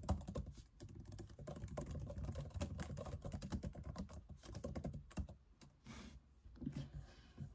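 Typing on a laptop keyboard: a fast, irregular run of key clicks that thins out to scattered taps in the last couple of seconds.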